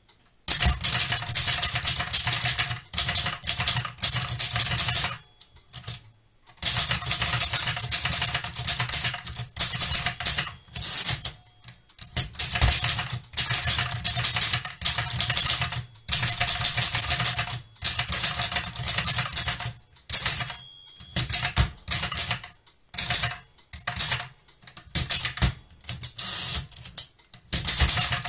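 Erika Modell 4 folding portable typewriter being typed on: quick runs of sharp key and typebar clacks against its hard platen, in bursts of a few seconds with short pauses between.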